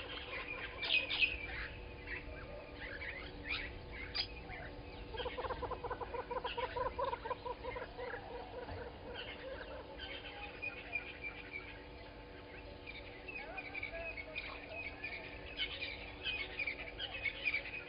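Several wild birds calling: repeated high chirps and trills throughout, with a lower, rapidly pulsed call from about five seconds in that lasts some four seconds.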